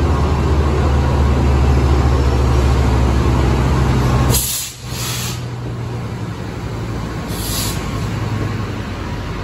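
Metrolink diesel locomotive running with a loud, steady low engine hum. Short bursts of air-brake hiss come about halfway through and again near the end.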